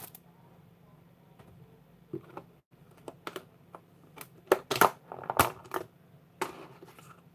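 Rigid clear plastic tubs being handled and opened: a string of sharp plastic clicks and taps, thickest about four to six seconds in.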